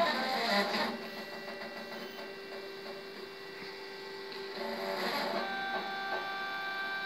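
Stepper motors of a hot-wire CNC foam cutter whining steadily as they drive the cutting wire, the pitch of the whine shifting a few times as the axes change speed.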